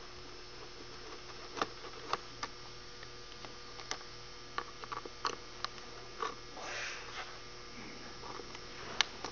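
Scattered small clicks and taps of a screwdriver and metal buckle hardware as the buckle screws are taken out of an Easyboot hoof boot, with a short rustle near the middle, over a steady electrical hum.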